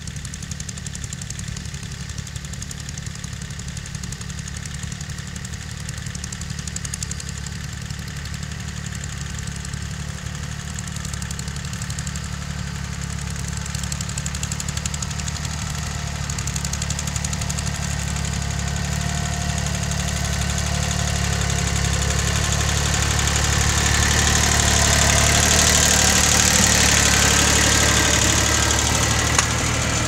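Small garden tractor's engine running steadily under load while pulling a plough through the soil, growing louder as it approaches and loudest near the end.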